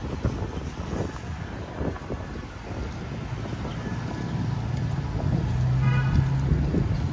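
Busy city street traffic: vehicles passing, with a low engine hum that builds about four seconds in and a short higher tone around six seconds.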